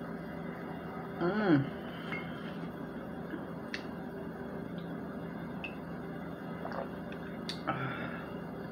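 A woman drinking from a glass mug over a steady low room hum: a short hummed vocal sound about a second in, then a few faint clicks of the glass as it is lifted and set back down on the table near the end.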